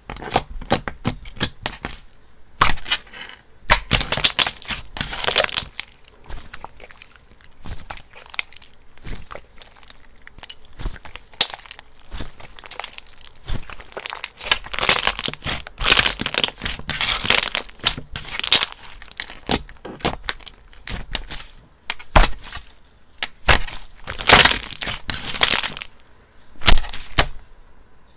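Slime being squeezed and worked by hand, giving many sharp clicks and pops in irregular clusters.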